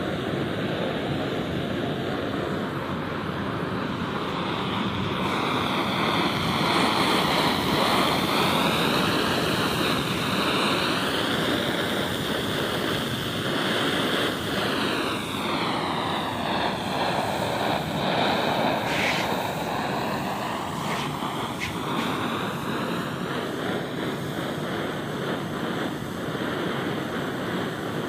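Clayton & Lambert Model 238 brass gasoline blowtorch burning, its pressurised flame making a continuous, steady rushing noise whose tone shifts slowly after about five seconds.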